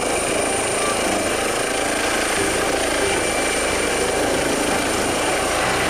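Air ambulance helicopter lifting off, its turbine engines and main rotor running with a steady rushing noise and a thin high whine above it.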